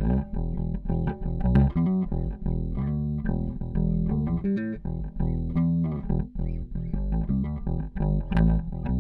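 Squier Vintage Modified Jaguar Bass, an electric bass with P and J pickups, played fingerstyle with both pickups blended: a busy line of quick plucked notes.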